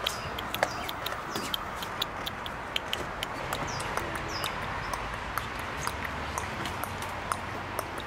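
Plastic toy horse hooves tapping on a ledge as the toys are walked along, giving light, irregular clicks several times a second. A bird chirps briefly a couple of times about halfway through.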